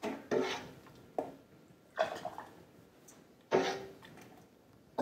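A ladle scooping thick barbecue sauce from a stainless steel stockpot, making a handful of short scrapes and knocks against the pot about a second apart, some with a brief metallic ring.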